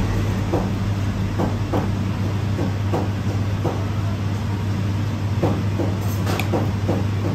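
A steady low machine hum, with light, irregular clicks and taps from a flat filling knife scraping and tapping the plate while dumplings are filled and folded by hand.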